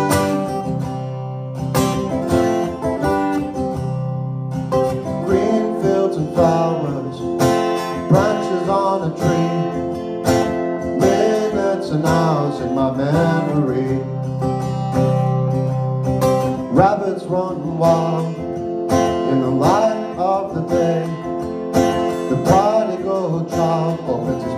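Acoustic guitar strummed with a capo on, opening a song; a singing voice comes in over it about five seconds in.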